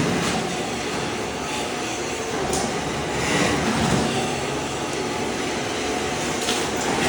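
Ride-on floor scraper running, its blade scraping thin-set tile mortar off a concrete slab: a steady harsh scraping noise that swells louder now and then.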